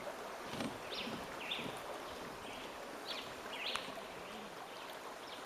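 Birds chirping in short high notes, about two a second, over a steady background hiss of running water.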